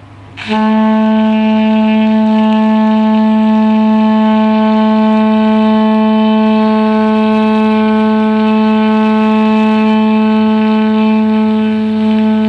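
Tenor saxophone sounding one long, steady held note, starting about half a second in: a long-tone warm-up exercise.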